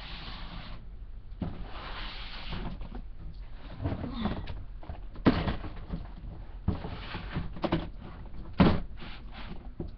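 Rustling and clatter of dog toys being handled and dropped into clear plastic storage bins, with several sharp knocks as a bin is pushed onto a wooden shelf.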